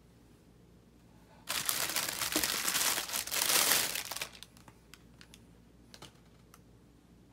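A clear plastic bag crinkles loudly for about three seconds, starting a second and a half in, as it is pulled off a plastic food container. A few faint clicks follow as the container is handled.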